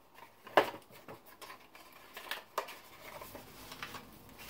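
Hands handling knives and their packaging: scattered light rustles and small clicks, the sharpest click about half a second in.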